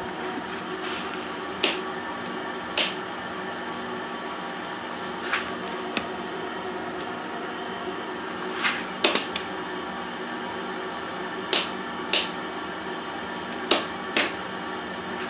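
Hardinge TFB toolroom lathe running with a steady motor hum. About ten sharp clicks come through it, mostly in pairs about half a second apart.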